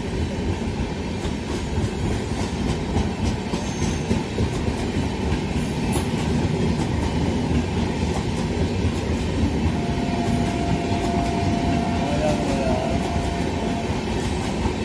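Indian Railways LHB passenger coaches passing close by at speed: a steady running noise of wheels on the rails with clatter over the track. A thin steady whine joins in about ten seconds in and lasts some four seconds.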